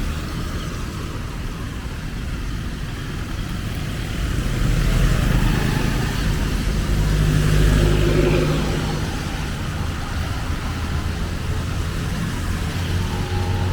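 Street traffic: a steady rumble of motor vehicles, with one engine passing close and getting louder from about four to nine seconds in.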